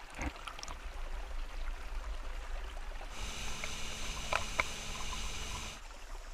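Water lapping and trickling along the side of a small boat, with small knocks. About three seconds in, a steady motor whine with rushing spray from a motorboat's wake takes over, cutting off abruptly near the end.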